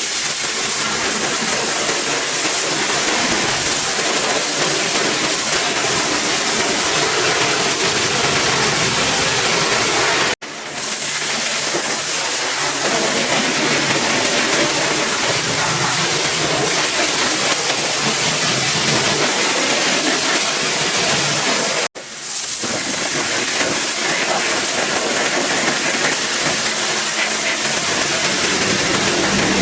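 Pressure washer spraying a high-pressure water jet, a loud steady hiss that drops out abruptly twice, about ten and twenty-two seconds in, and comes straight back.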